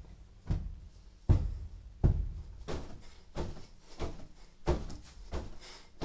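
A string of soft thumps, about every two-thirds of a second, as a person hops in a crouch and bumps down onto a bed, with bedding rustling near the end.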